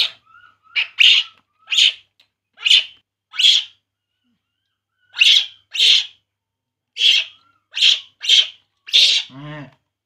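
A baby macaque crying: about a dozen short, shrill cries, often in pairs, with a pause of about a second in the middle. These are the cries of an infant monkey wanting its milk bottle.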